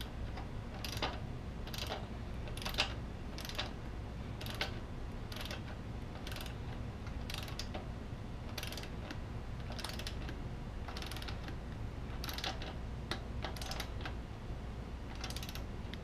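Socket ratchet wrench clicking in short bursts, about one a second, as it is swung back and forth turning the rear axle nut of a Yamaha XT-250.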